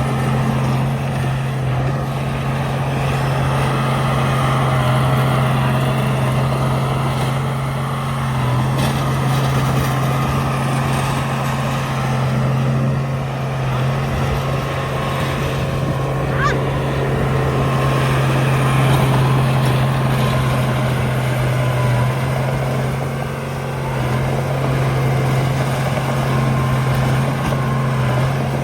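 Heavy diesel engine of a Komatsu D31A bulldozer running steadily under work, a constant low hum. There is a brief rising squeak about halfway through.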